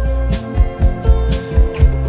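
Background music: a track with a steady drum beat over a bass line and held chords.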